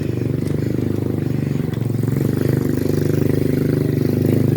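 A low, steady engine rumble with a fast, even pulsing, growing slowly louder: a motor vehicle running close by on the road, heard over the ride's wind noise.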